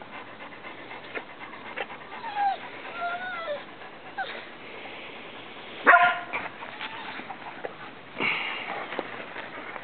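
Setter dog whining, with a few short rising-and-falling whines, then one loud short bark about six seconds in and another loud burst of sound a couple of seconds later.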